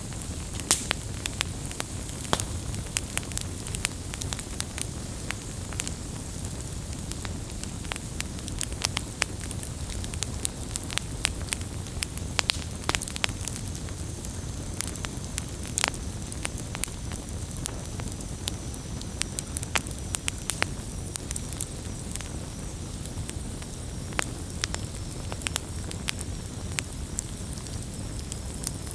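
Wood campfire burning: frequent sharp, irregular crackles and pops of the burning wood over a steady low noise of the flames, with a faint high hiss coming in about halfway through.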